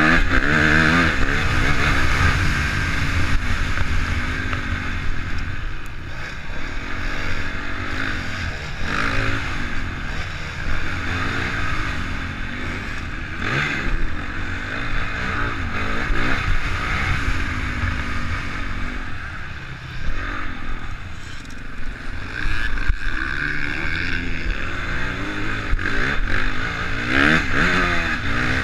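Honda CRF450 motocross bike's single-cylinder four-stroke engine, heard onboard, revving up and down again and again as it accelerates out of turns and shifts through the gears.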